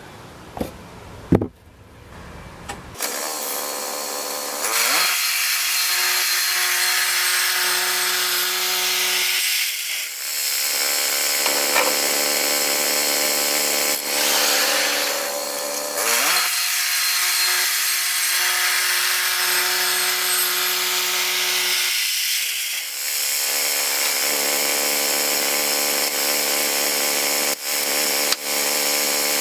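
Woodland Mills portable bandsaw mill. Its engine starts about three seconds in, then runs steadily while the blade cuts along a long log. The engine note dips and recovers three times as the load on the cut changes.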